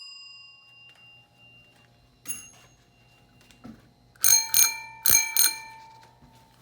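Vintage bicycle bells rung by thumb: a faint short ding about two seconds in, then two quick double rings a little after four and five seconds, the bell ringing on and fading out.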